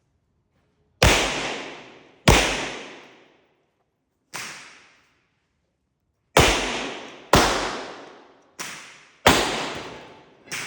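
Eight pistol shots from a Glock G25 in .380 ACP, fired at an uneven pace with gaps of about one to two seconds. Each shot is a sharp crack followed by a decaying echo. Three of the shots are noticeably quieter, including the last one near the end.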